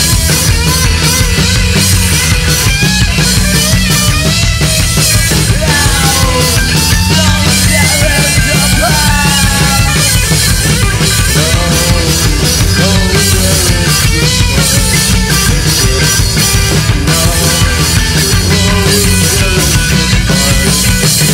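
Psychobilly rock band playing live at full volume: pounding drum kit and cymbals, bass and electric guitar in a fast punk-rock groove.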